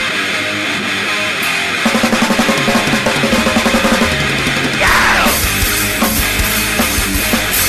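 Instrumental intro of a grindcore song: distorted electric guitar riffing, with fast repeated low notes from about two seconds in. About five seconds in comes a falling guitar slide, and after it the full drum kit and bass come in.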